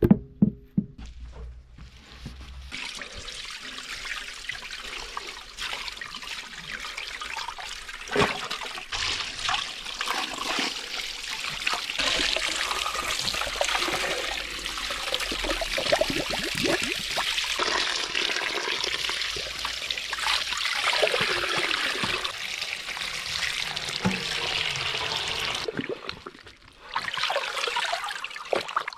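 Running water splashing steadily, beginning a couple of seconds in after a sharp knock. It breaks off briefly near the end and then starts again.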